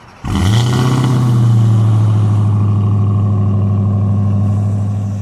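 Dodge Charger SRT Hellcat's supercharged 6.2-litre Hemi V8 starting up. It catches about a quarter second in with a quick flare, then settles into a loud, steady idle.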